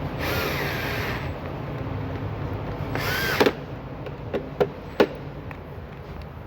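Power drill driving the mud guard's screws tight in two short runs, the motor whine gliding as it spins, followed by a few sharp clicks.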